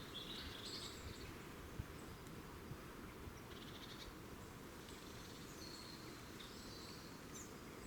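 Faint, scattered high-pitched bird calls: a few short chirps and one brief buzzy trill a few seconds in, over a steady low background rumble.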